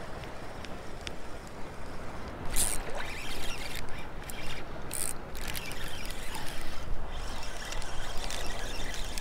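Shallow surf water sloshing and trickling right at the microphone, with a spinning reel being cranked. Two sharper splashes come about two and a half and five seconds in.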